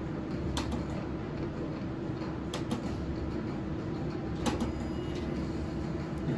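Skill slot machine spinning against a steady room hum, with a sharp click about every two seconds.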